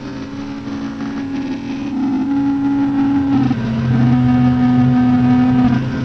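Experimental lo-fi horror noise music: sustained droning notes over a low drone and a noisy haze. The upper note steps down in pitch about halfway through as the music grows louder.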